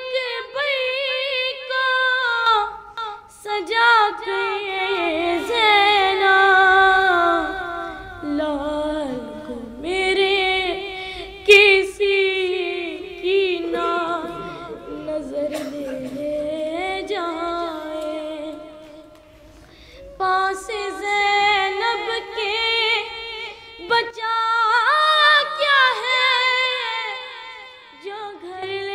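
A solo voice singing a noha, a Muharram lament for Hussain, unaccompanied, in long wavering phrases with pauses for breath. A few sharp knocks cut in.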